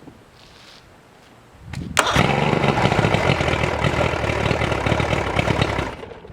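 Mercury outboard motor with a newly replaced starter turning over briefly and catching about two seconds in, then running loudly and steadily before dropping off sharply near the end.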